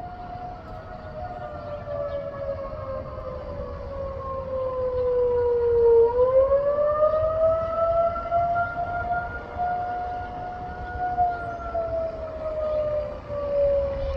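A siren wailing slowly in the distance-free open air: its pitch falls for about six seconds, swings back up, holds, and then falls again, growing louder toward the middle.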